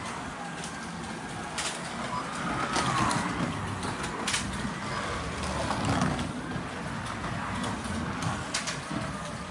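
Carrera Digital 132 slot cars lapping the track, their small electric motors whining and rising and falling in pitch over a steady rumble of running cars. A few sharp clicks come through, about three in all.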